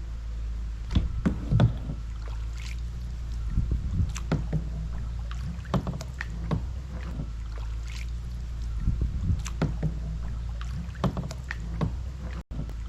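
Paddles dipping and knocking against a small paddled boat, with irregular splashes and clunks over a steady low rumble.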